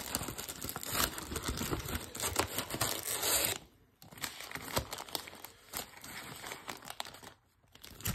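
Plastic shrink wrap torn and crumpled off a trading-card blaster box, dense crackling for about three and a half seconds. It then stops suddenly, giving way to softer, scattered rustles and scrapes as the cardboard box is opened and the packs are handled.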